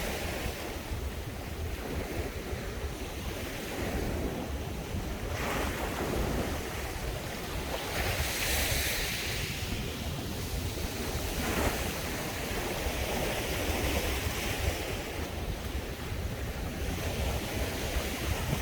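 Sea waves breaking and washing up a beach, the hiss of the surf swelling and ebbing every few seconds. A low wind rumble on the microphone runs underneath.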